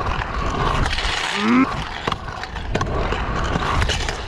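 Scooter wheels rolling over concrete, with wind rushing on a head-mounted action camera's microphone and a few sharp knocks along the way. A short rising vocal sound about a second and a half in.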